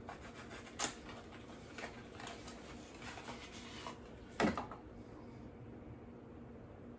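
Handling noise of a small cardboard carton and a plastic tube of skin cream being taken out of it: light rustling with a few short clicks, the sharpest about four and a half seconds in, then only faint rustle.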